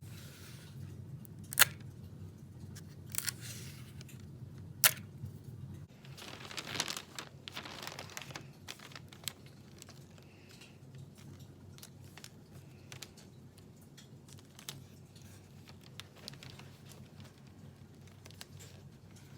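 Gift-wrapping paper being handled: rustling and crinkling with short tearing sounds and two sharp snaps, about one and a half and five seconds in, then a longer rustle before it goes quieter.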